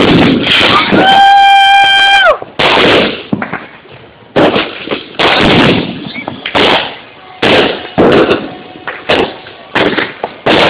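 Aerial fireworks going off in a rapid series of loud bangs, roughly one a second. A steady horn-like tone sounds for about a second near the start.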